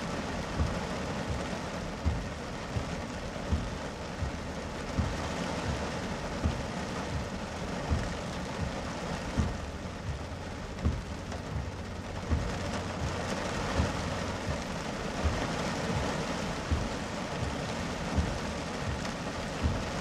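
Heavy rain pelting a car's windshield and roof, heard from inside the cabin: a dense, steady hiss with frequent dull thuds, roughly one a second.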